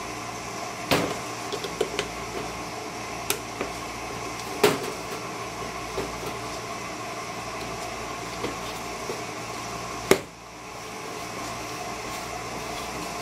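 Plastic food-storage container and its lid being handled: a few light clicks and knocks, and a sharper snap about ten seconds in, over a steady background hum.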